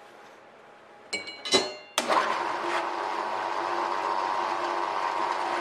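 A few metallic clanks with a ringing tone about a second in, then a small metal-cutting band saw switched on about two seconds in and running steadily.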